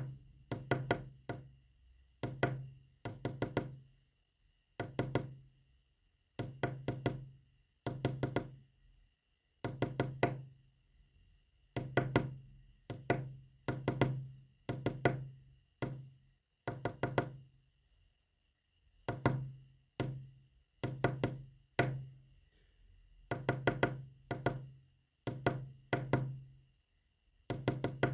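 A Morse code message tapped out as knocks, each knock followed by a short low ring. They come in irregular groups of a few strokes with short pauses between.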